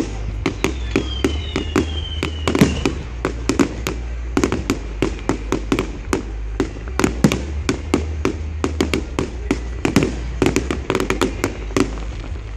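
Fireworks display: a rapid, continuous barrage of bangs and crackles, several reports a second, with falling whistles from firing shells about one to three seconds in.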